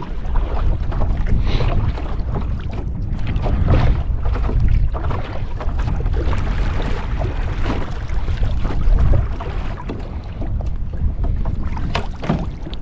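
Wind buffeting the microphone in a steady low rumble, with water sloshing and splashing.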